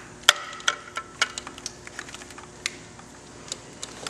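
Irregular small clicks and taps of plastic wiring connectors and corrugated wire loom being handled by hand, the loudest a moment after the start.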